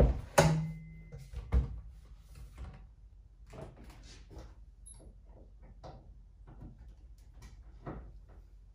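A benchtop miter saw is set down on a workbench with a heavy thump and a brief metallic ring, then a second knock. Light scattered knocks and clicks of tools and parts being handled on the bench follow.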